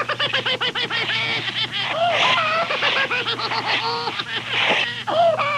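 Rapid, high-pitched cackling laughter, played from a Halloween sound-effects cassette: quick repeated cackles, with a steady low hum underneath.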